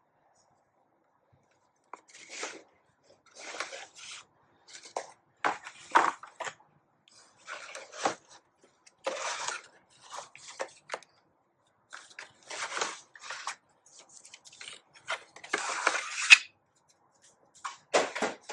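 Product packaging being handled and opened: irregular rustling, scraping and tearing noises that begin about two seconds in.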